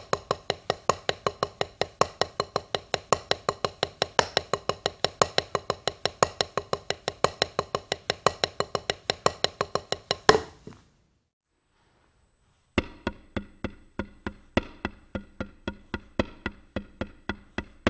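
Drumsticks on a practice pad playing single paradiddle-diddles (right-left-right-right-left-left) in an even stream of strokes. The playing stops on one loud stroke about ten seconds in and, after about two seconds of silence, starts again with a faint steady high tone behind it.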